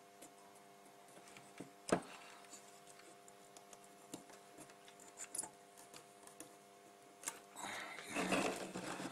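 Soldering iron and copper desoldering braid worked over a circuit-board pad to wick up old solder. There are a few small clicks and taps, then a short stretch of scraping and rubbing near the end, over a faint steady hum.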